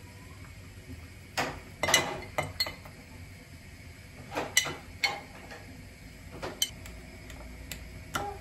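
Kitchen dishes and utensils clinking and knocking as food is prepared, in irregular sharp strikes, loudest about two seconds in.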